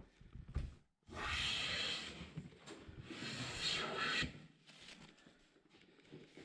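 Luban hand plane taking two long smoothing strokes across a wooden panel, each a rasping hiss of the blade shaving the surface and lasting about a second and a half. A couple of light knocks come just before the first stroke.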